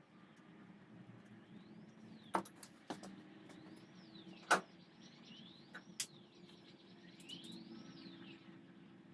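Sharp metallic clinks and knocks of a new camshaft being worked into the cam bearings of a Chrysler 318 V8 block, two of them louder than the rest. Under them a steady low hum, and a faint whistle that rises and falls in pitch about every second and a half.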